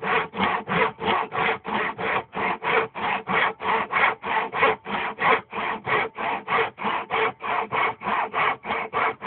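Tenon saw cutting through a small block of wood by hand in quick, even strokes, about four a second.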